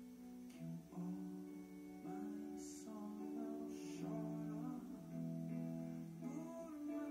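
A woman singing held, slow-bending notes over electric guitar accompaniment, heard through a television's speaker.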